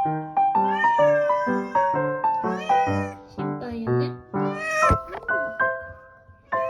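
A cat meowing several times, drawn-out calls that bend in pitch, over background music of evenly paced plucked or piano-like notes.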